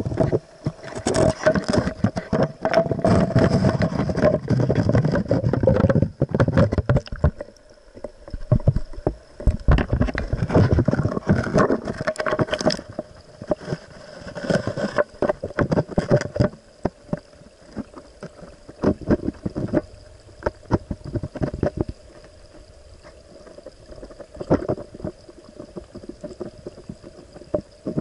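Mountain stream heard through a camera held underwater: moving water with many knocks and clicks and a steady hum. The knocks come thick in the first half and thin out after about sixteen seconds.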